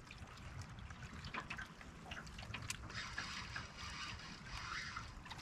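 Small waves lapping and trickling against the hull of an aluminium fishing boat, a low constant patter of little splashes and ticks.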